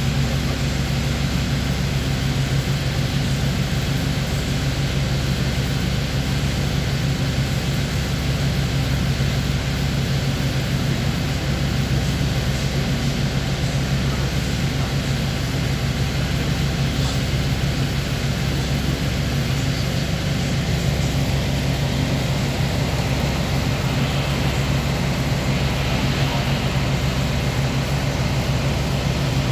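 Steady low drone of a ferry's engine heard from the lower deck, over a constant rush of water and wind.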